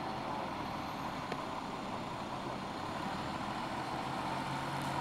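Diesel engine of a Holmer Terra Variant self-propelled slurry tanker running steadily at low revs as the machine rolls slowly past.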